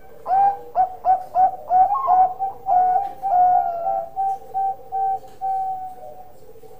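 Bangkok-type zebra dove (perkutut) cooing: a run of about a dozen coos, short and quick at first, longer notes in the middle, then spaced-out short notes, ending about six seconds in.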